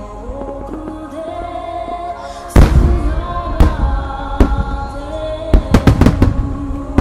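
Fireworks bursting over music played through loudspeakers. There is one very loud bang about two and a half seconds in, then a quick run of bangs near the end.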